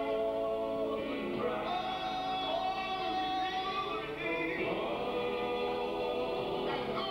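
Male gospel vocal group singing in close harmony, holding a long chord that breaks about a second in, then moving on to the next line of the song.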